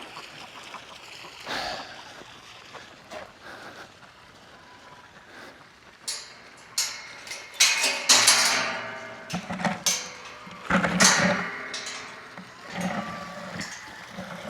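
Goats bleating: two loud calls a little past the middle and fainter ones near the end, with a few sharp clicks and rustles just before them.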